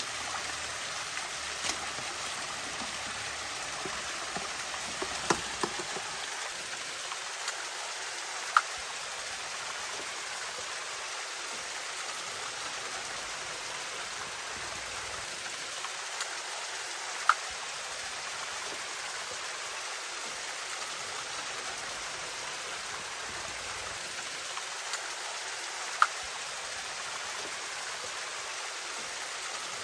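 Steady rush of running water, with a few sharp clicks on top: several small ones in the first ten seconds and three louder ticks spaced about nine seconds apart.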